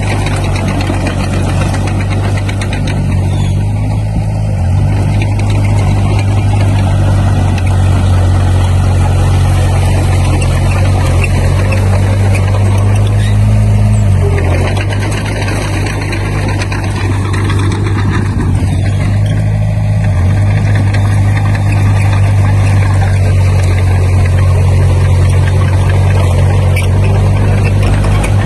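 Heavy-equipment diesel engine running steadily, a loud low drone whose pitch shifts slightly a few times.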